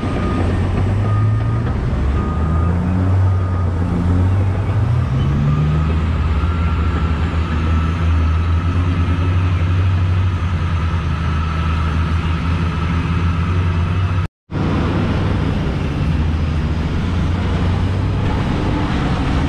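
Caterpillar 777E haul truck's diesel engine running, its pitch rising between about four and six seconds in as it speeds up, then holding steady. The sound cuts out for a split second about two-thirds through.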